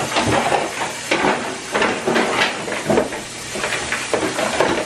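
A spoon scraping and knocking around a plastic mixing bowl as thick banana bread batter is stirred by hand, in irregular strokes about every half second.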